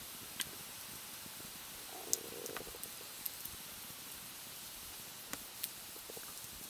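Small wood campfire burning, with about half a dozen sharp crackles and pops spread through a steady faint hiss.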